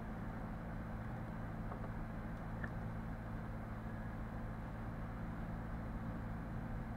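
Steady low electrical hum with hiss, the background noise picked up by a screen-recording microphone, with a couple of faint clicks about two and a half seconds in.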